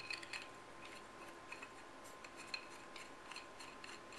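Light metallic clicks and ticks from handling a Planet Eclipse Etek 3 AM paintball marker as its barrel is fitted to the aluminium body, a cluster of sharper clicks near the start, then scattered taps.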